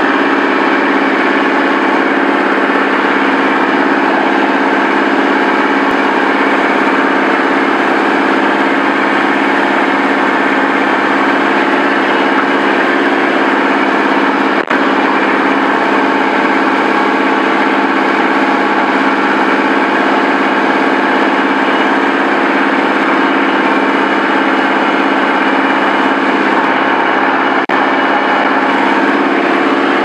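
Compact tractor's engine running steadily at a constant speed while the tractor moves logs with its front loader.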